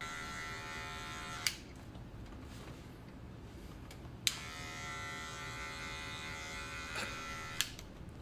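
Barber's electric hair clippers buzzing steadily. They cut off with a click about a second and a half in, click back on about four seconds in, and click off again near the end.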